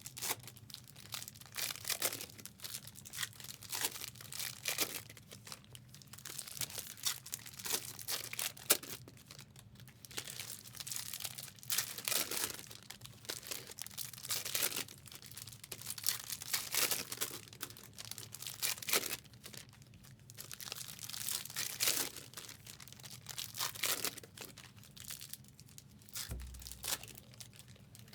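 Foil hockey card pack wrappers being torn open and crinkled again and again in irregular bursts, as packs are ripped one after another.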